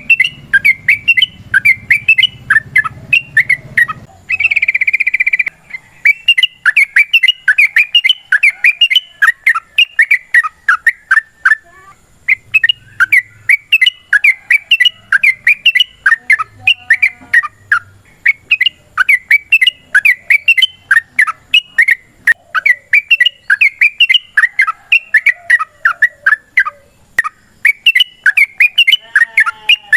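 Yellow-vented bulbul (trucukan) singing a long, fast run of chattering, bubbling chirps, repeated phrase after phrase with only brief pauses, and a short buzzy note a few seconds in.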